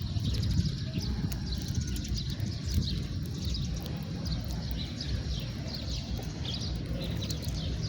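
House sparrows chirping: a steady run of short, repeated chirps, over a steady low rumble.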